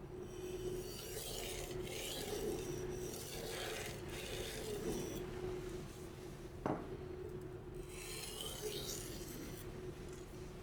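Steel knife blade being drawn across a whetstone in several slow strokes, each a hissing scrape, with a light click about two-thirds of the way through.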